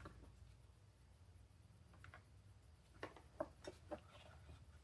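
Near silence in a small room, with a few faint light clicks about three to four seconds in.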